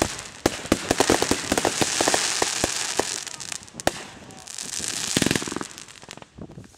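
Consumer fireworks going off in a rapid series of sharp pops and crackles, dense at first and thinning out over the last couple of seconds.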